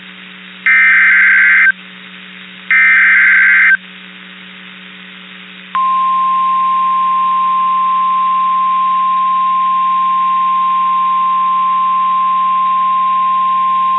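NOAA Weather Radio SAME digital data bursts, two harsh warbling bursts about a second long and a second apart, followed about two seconds later by the 1050 Hz warning alarm tone, one steady high tone that announces the next alert. A faint steady hum from the radio receiver runs underneath.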